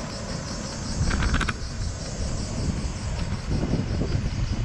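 Wind buffeting the microphone as a gusty low rumble, with a brief rattle of clicks about a second in.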